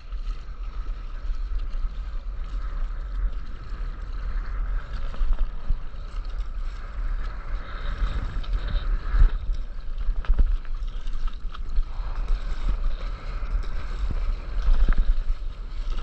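Wind rumbling on the microphone over water sloshing and splashing around a stand-up paddleboard on the sea, with a few sharper splashes.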